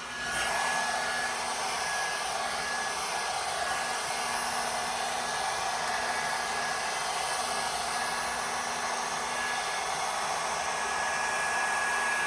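Revlon One-Step hot-air round-brush styler blowing steadily on its lower setting while being drawn through the hair, a rushing airflow with a faint steady whine. It gets louder about half a second in.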